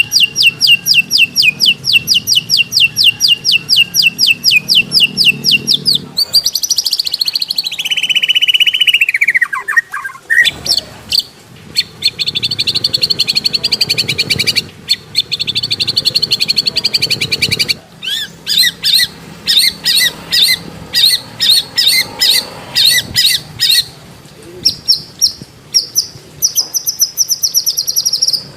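Loud recorded songbird song of the kind used to train white-rumped shamas: a rapid run of sharp repeated notes, about five a second, then a long whistle falling steeply in pitch, then fast trills and further strings of chirps.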